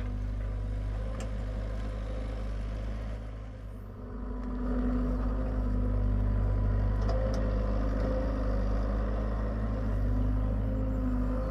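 Diesel engine of a Hitachi EX75UR excavator running steadily while digging. It dips briefly about four seconds in, then comes back louder and stays up.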